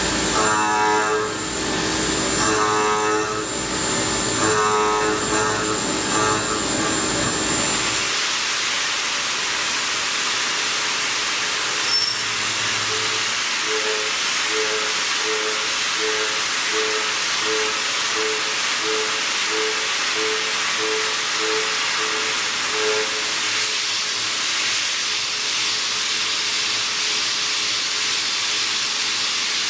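Music with a repeating plucked phrase cuts off about eight seconds in. A steady, loud hiss follows: the sound of a carbide end mill high-feed milling metal on a CNC machine.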